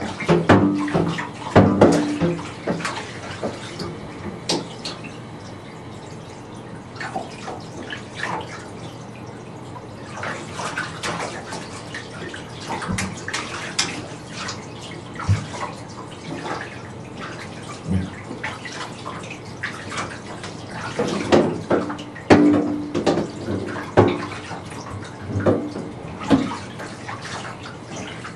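Water splashing and sloshing in a bathtub as a small child is washed: irregular splashes, busiest at the start and again about three-quarters of the way through.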